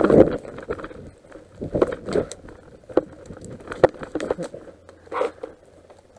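Footsteps running over dry leaves and twigs, a dense crunching rustle at first, then single crunches and sharp clicks spaced about half a second to a second apart.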